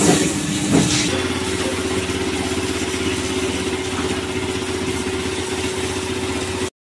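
Motorcycle wash-bay pressure washer running: a steady motor hum with a water jet hissing against a motorcycle's muddy rear wheel and tyre. The hum shifts to a lower, steadier note about a second in, and the sound cuts off abruptly just before the end.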